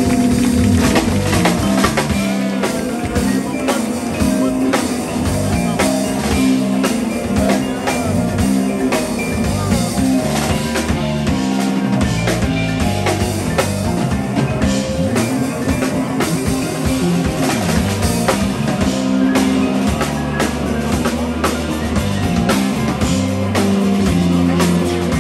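A small jazz band playing live: drum kit with frequent sharp hits under electric bass, electric guitar and keyboards, at a steady, full level.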